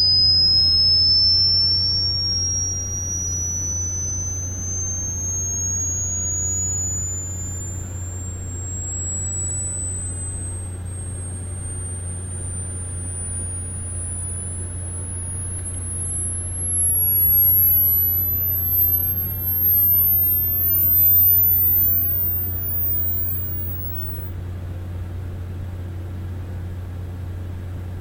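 Hearing-test sine tone sweeping slowly and steadily upward in pitch, from a high whistle to the very top of hearing, passing out of range near the end. A steady low hum runs underneath.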